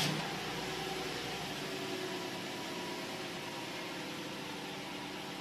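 Toyota Tarago van engine idling steadily just after starting, with a steady hiss over a faint hum.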